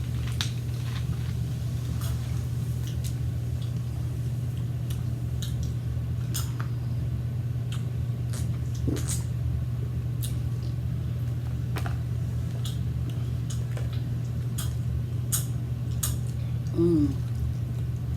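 Close-up eating sounds: chewing and mouth smacks with scattered small clicks of cutlery, over a steady low hum. Near the end comes one brief, high, voice-like squeal.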